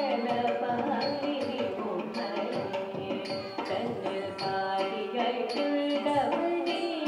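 Carnatic song for Bharatanatyam dance: a bending melody over a steady drone, with a hand drum beating a quick, busy rhythm.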